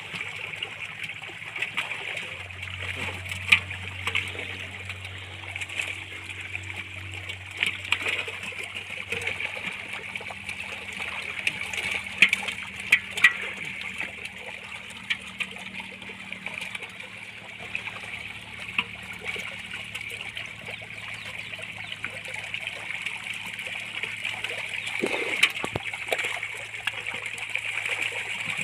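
Water splashing and sloshing as pangasius catfish crowd and thrash in a pulled-in seine net and are scooped out, with a few sharper splashes now and then over a steady high hiss.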